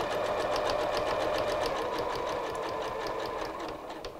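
Janome MC11000 computerized sewing machine stitching a seam at a steady speed: motor hum with a rapid, even clicking of the needle. It dies away near the end as the machine stops.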